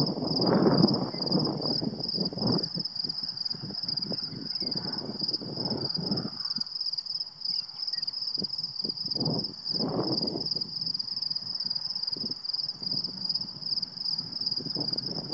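Wind gusting through tall prairie grass, rising and falling, strongest near the start and again about ten seconds in. A steady high-pitched buzz sits behind it.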